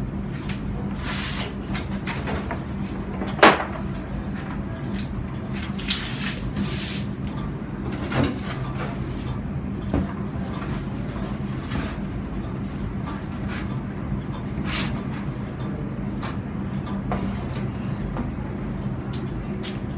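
Handling sounds at a whiteboard while a printed sheet and a marker are worked with: scattered knocks and clicks and a few short rustles, over a steady low room hum. The loudest is a sharp knock about three and a half seconds in.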